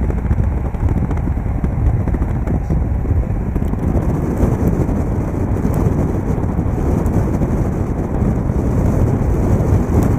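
Steady road noise at motorway speed: tyre roar and wind rushing past a moving car, heavy in the low end, with no engine note standing out.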